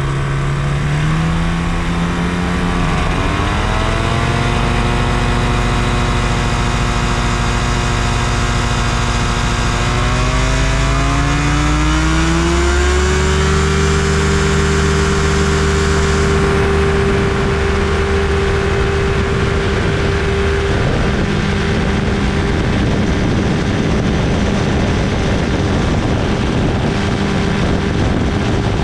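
Challenger II ultralight's two-stroke engine and propeller running hard and throttled up in two steps, the pitch climbing a few seconds in and again around ten to thirteen seconds in, then held steady at high power, as for a takeoff run.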